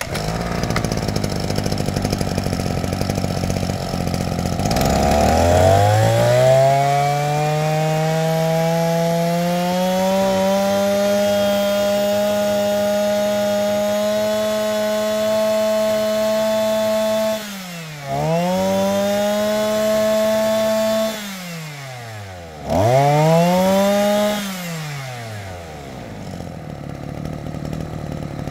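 Maruyama MBS 2630T brush cutter's two-stroke engine idling, then revved up about five seconds in and held at high speed for about twelve seconds with a brief dip, let down, blipped up once more, and back to idle near the end. It runs quietly at idle and smoothly at full throttle, the sign of a strong, healthy engine.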